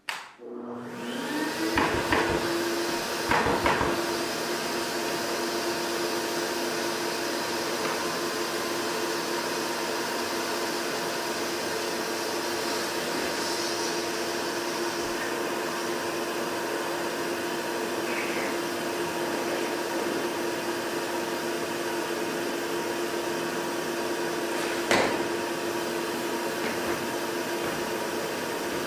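Nilfisk-Alto dust extractor switched on, its motor spinning up with a short rising whine and then running steadily with a constant hum and rush of air. A few sharp knocks come about two and three and a half seconds in, and another about twenty-five seconds in.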